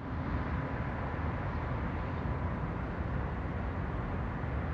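Steady outdoor ambient rumble, heaviest in the low end, with a faint steady high tone, starting just before and holding level throughout.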